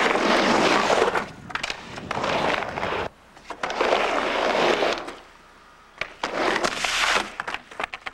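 Skateboard wheels rolling on a wooden halfpipe in three loud runs, with quieter gaps between them, then a fall with the board clattering on the ramp near the end.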